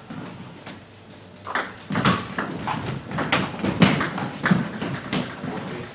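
Table tennis ball in a fast doubles rally, clicking off bats and the table about three times a second, starting about a second and a half in.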